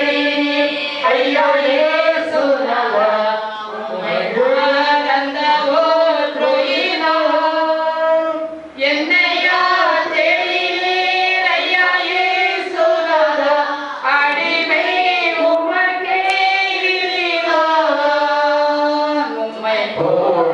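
A devotional song sung without instruments, the voices holding long, slowly wavering notes, with a short break for breath about nine seconds in.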